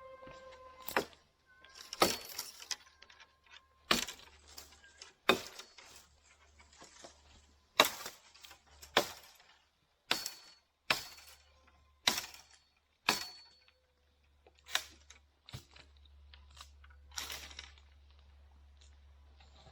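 Chopping wood with a bladed tool: about a dozen sharp blows, mostly about a second apart, a few leaving a brief metallic ring.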